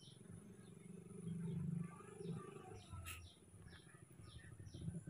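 Faint series of short, high chirps, about two a second, from a bird calling, over a low rumble that swells about a second in.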